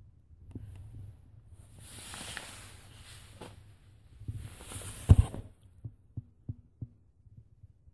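Rustling and handling noise as the camera is moved about, in two stretches, with a loud thump about five seconds in. Several soft low knocks follow near the end.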